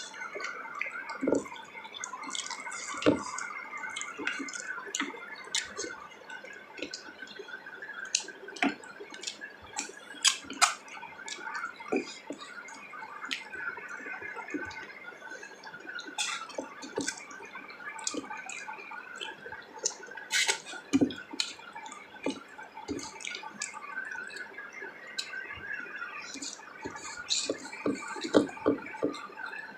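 Close-up eating sounds: wet chewing and lip smacks, with many short irregular clicks and smacks.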